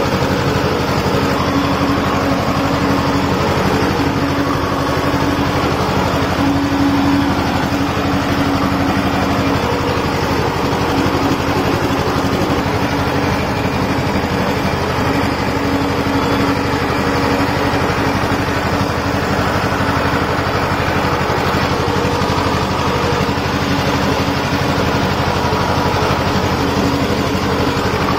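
Farm tractor's diesel engine running steadily under load while pulling a tillage implement through the soil, heard from the driver's seat.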